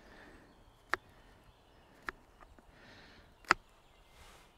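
Knife cutting mushrooms on a thin plastic cutting board: three sharp taps of the blade on the board, a second or so apart, the last the loudest, with a couple of softer clicks between.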